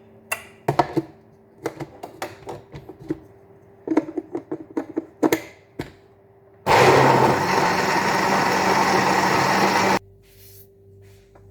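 A series of knocks and clicks, then an electric blender runs at a steady pitch for about three seconds, grinding ginger in water, and cuts off suddenly.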